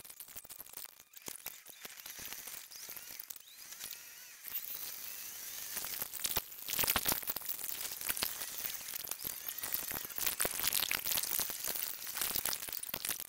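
Sped-up dashcam audio of a car driving: road and engine noise from inside the cabin, turned by the speed-up into a high, hissing rush full of clicks. It gets louder about four and a half seconds in.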